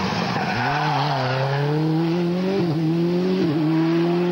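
Rally car engine accelerating hard away from a hairpin. Its pitch climbs steadily, dipping briefly twice, about two and a half and three and a half seconds in.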